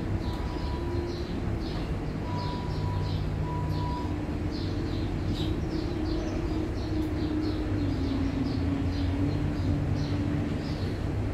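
A steady low mechanical drone whose pitch wanders slightly, with small birds chirping repeatedly over it.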